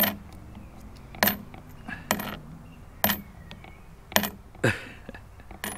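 Small metal coins clinking as they are set down and sorted one at a time: about seven sharp clicks, roughly one a second, each with a brief high ring.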